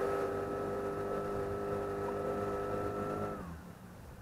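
Outboard motor pushing a long wooden boat upstream, running at a steady pitch, then throttled back about three seconds in so its note falls and it quietens.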